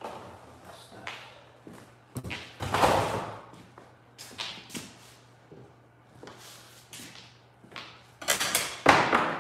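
Irregular knocks, thumps and rustling of objects being handled and set down, the loudest bursts about three seconds in and again near the end, over a faint steady low hum.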